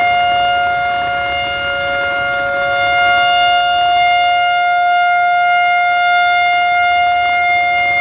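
Whelen WPS-3016 electronic siren sounding its steady alert tone, two held pitches at once with overtones, swelling and easing slightly as its rotating speaker array turns.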